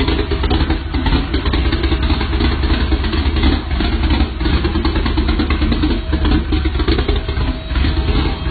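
Loud vehicle engine exhaust running steadily, a rough rumble that flutters rapidly in loudness without rising or falling in pitch.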